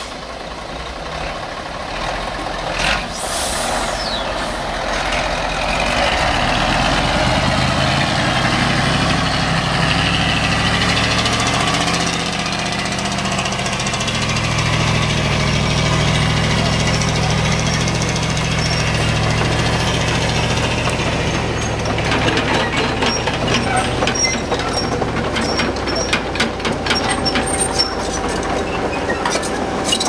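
Diesel engine of a heavily loaded log truck working hard as it climbs a steep dirt track, its pitch rising and strengthening as it pulls. There is a short air hiss about three seconds in, and a run of clicks and knocks near the end.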